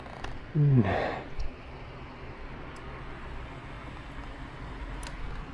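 A man's short voiced sigh and breathy exhale just under a second in, then steady street traffic noise with a low rumble and a few faint clicks.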